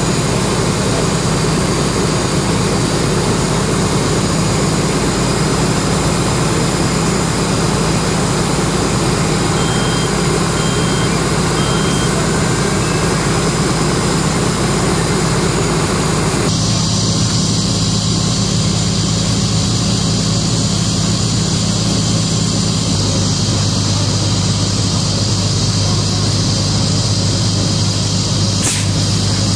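Fire engine running steadily to pump charged hose lines: a constant low engine drone under a wide hiss. Three short high beeps sound about ten seconds in, and the sound shifts abruptly twice in the second half.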